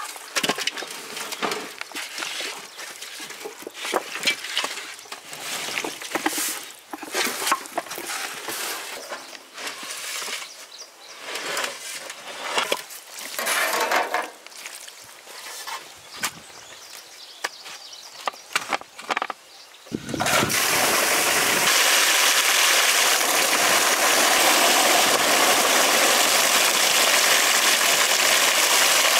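Scattered knocks and clatter, then, about two-thirds of the way in, water suddenly starts gushing steadily from a pump outlet pipe into a concrete tank.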